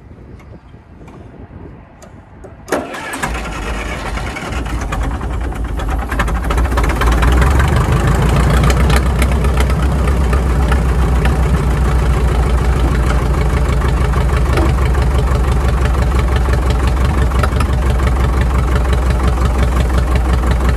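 International Harvester TD-9 crawler's diesel engine starting: it catches with a sharp click about three seconds in, builds up over the next few seconds and settles into a loud, steady run.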